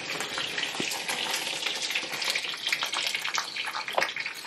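Yellow mustard and poppy seeds pouring into a stainless steel mixer-grinder jar: a steady, dense patter of small seeds on metal.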